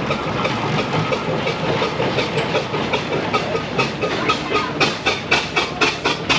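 Steam traction engine moving off while towing a living van, with a steady rumble. From about four seconds in, its chimney exhaust beats turn sharp and even, about three to four a second, and grow louder.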